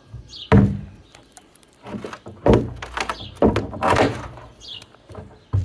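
Old wooden barn boards being knocked and pried loose: a series of about five hollow wooden thuds and knocks, each sudden and ringing briefly in the barn.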